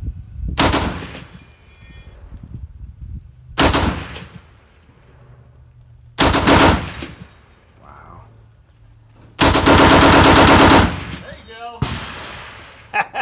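M2 .50 BMG heavy machine gun firing four short bursts a few seconds apart. The last and longest burst, a second and a half of rapid fire, comes about two-thirds of the way in.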